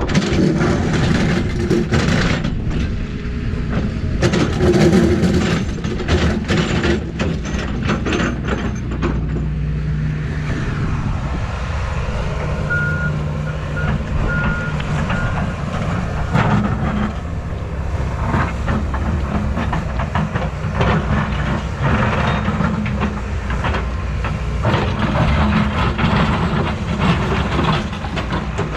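Excavator's diesel engine running under load while digging, with repeated clanks and knocks from the bucket and machine. A backup alarm beeps four times about 13 seconds in.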